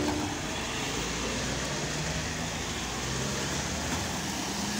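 SUVs, a Mahindra Scorpio and then a Toyota Innova Crysta, driving past one after another: a steady mix of engine hum and tyre hiss on a wet road.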